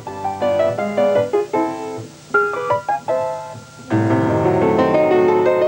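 Background music: piano notes in quick runs and arpeggios, filling out into fuller sustained chords about four seconds in.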